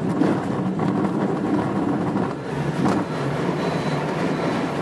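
Steady rumble and rattle inside the cockpit of a Grob 103 glider rolling over a grass strip on its takeoff run, with a couple of sharper knocks from bumps.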